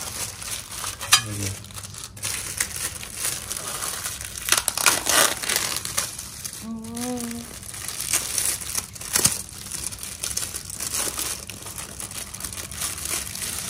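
Thin clear plastic packaging crinkling and rustling as it is peeled and pulled off the pieces of a DIY wall-clock kit, in irregular bursts throughout. A brief voice is heard about halfway.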